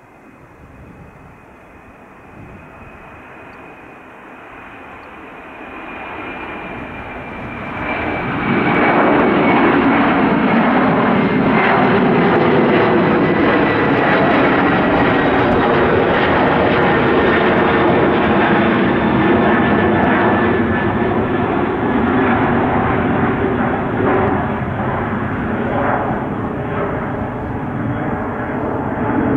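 Airbus A300-600ST Beluga's two General Electric CF6-80C2 turbofan engines at takeoff power as the jet lifts off and climbs away. A high whine slowly falls in pitch, and about eight seconds in the engine roar swells sharply and stays loud.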